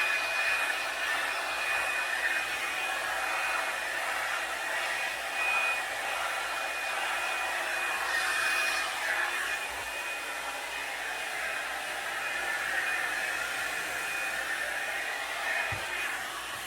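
Revlon One-Step hair dryer brush blowing steadily as it is worked through damp hair: a continuous rush of air with a faint, steady high whine from the motor.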